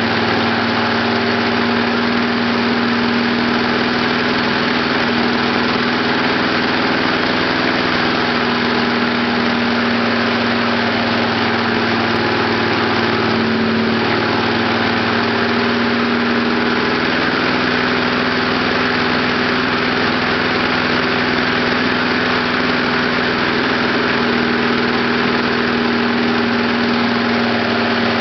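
Lawn mower's small gasoline engine running steadily, fed on heated gasoline vapor from a homemade vapor kit.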